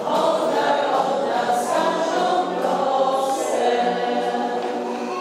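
A choir singing a hymn, many voices together.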